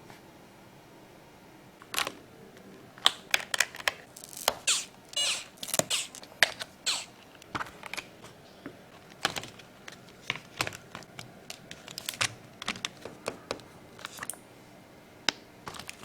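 A Darmoshark TOP75 mechanical keyboard and its packaging being handled and pressed: irregular clicks and taps mixed with short rustles and slides. They start about two seconds in.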